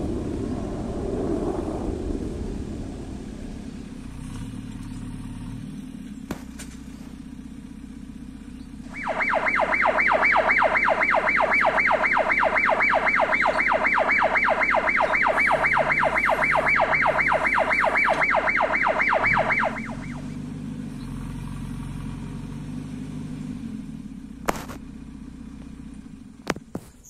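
JCB 3DX backhoe loader's diesel engine running, heavier for the first couple of seconds. About nine seconds in, a loud, rapidly pulsing electronic alarm from the machine sounds for about ten seconds, then stops. A couple of sharp clicks come near the end.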